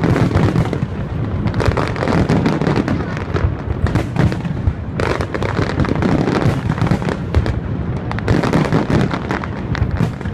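Loud aerial fireworks barrage: many shells bursting in quick succession, a continuous dense crackle over low thuds, thinning briefly twice.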